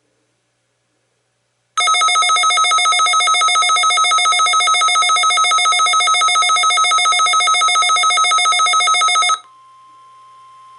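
Weather radio receiver's electronic alert alarm: a loud, rapidly pulsing multi-tone beeping that starts about two seconds in, lasts about seven and a half seconds, then cuts off abruptly, leaving a faint steady tone. The receiver has been set off by a NOAA Weather Radio weekly test signal.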